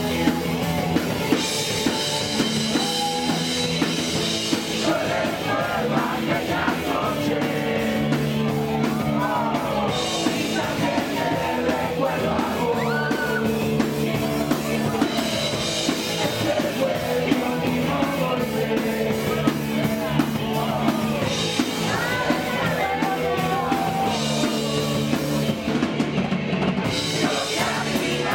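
Punk rock band playing live: electric guitar and drum kit, with sung and shouted vocals coming in about five seconds in.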